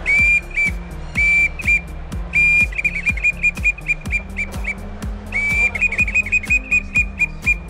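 Stickhunt acrylic reed hunting call blown by mouth: long held notes breaking into quick runs of short notes, all on the same high, clear pitch, repeated in about three sequences.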